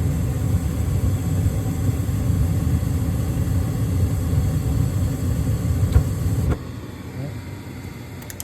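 HVAC unit's fan motor running with a steady low rumble, then a click about six seconds in and the running sound cutting off abruptly just after: the system dropping out, an intermittent shutdown the technician traces to a poor connection at the control board's 12-pin connector.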